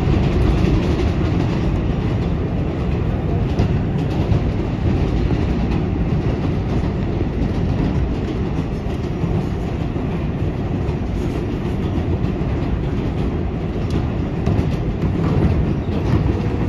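R188 subway train running along elevated track, heard from inside the front cab: a steady, loud rumble of wheels on rail, with a few faint clicks.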